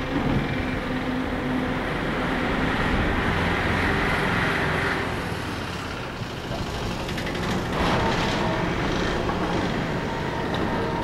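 WDG4 diesel-electric locomotive's 16-cylinder two-stroke EMD engine running hard under load as the train approaches, a loud steady rumble that grows brighter and louder about eight seconds in.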